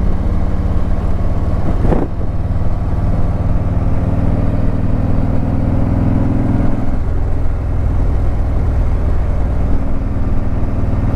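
Harley-Davidson Ultra Limited's V-twin engine running under way on a mountain road. A brief knock comes about two seconds in, and the engine note eases off about seven seconds in, then picks up again shortly before the end.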